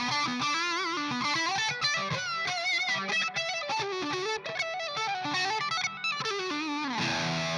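Distorted electric guitar played through an Ibanez FLMINI analog flanger pedal. It plays a single-note lead line with bends and vibrato, then strikes a chord about seven seconds in and lets it ring.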